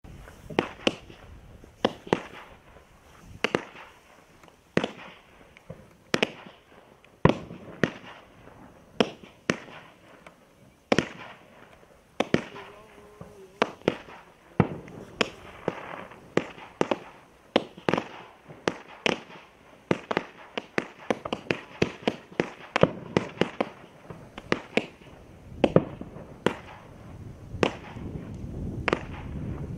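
Celtic Fireworks Spit Crackle Strobe, a quiet 16 mm, 64-shot firework cake, firing. Sharp pops come about one a second at first, then faster from about halfway, with crackling between the shots.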